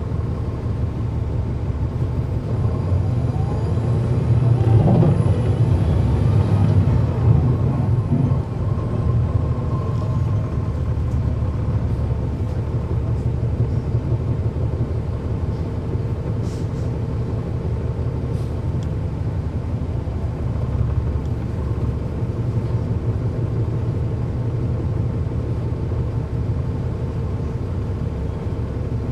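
Cummins ISL9 diesel engine of a NABI transit bus running under way, a steady low drone that swells for a few seconds between about four and eight seconds in, with a faint high whistle rising and falling over it.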